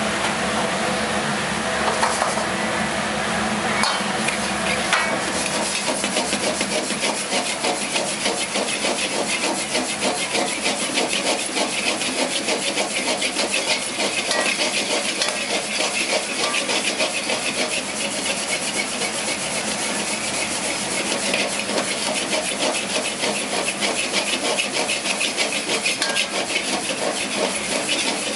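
Chinese wok being tossed rapidly over a gas burner: dry granules swishing and rattling in the pan while the wok scrapes back and forth on the burner ring. There are a few separate clacks at first, then a fast, steady rhythm.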